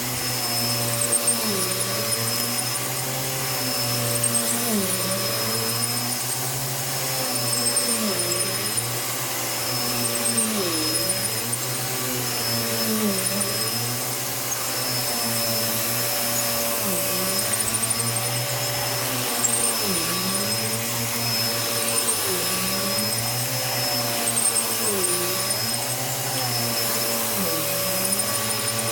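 Bissell PowerClean vacuum cleaner running steadily while being pushed back and forth. Its motor pitch dips and recovers about every two seconds as each stroke loads it.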